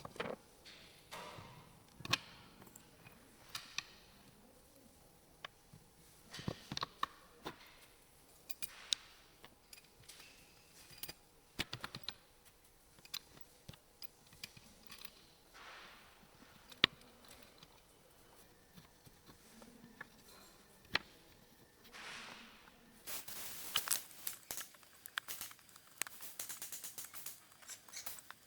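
Scattered light taps and knocks of things being handled, one sharp tap about two-thirds through, then a stretch of rustling, crinkling noise near the end.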